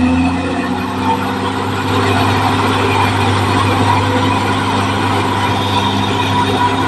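Caterpillar D6R XL bulldozer's diesel engine running at a steady pitch.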